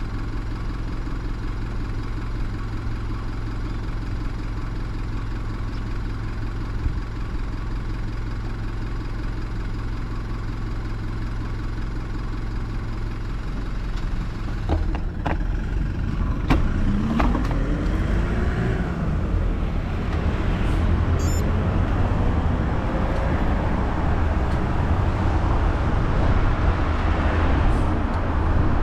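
A motor vehicle's engine idling with a steady low hum. About halfway through come a few sharp clicks, then an engine rising in pitch as it pulls away, followed by louder road and wind noise.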